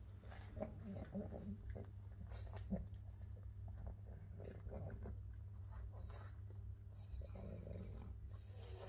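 A pug gnawing on a dried meat chew, with irregular crunching and chewing sounds.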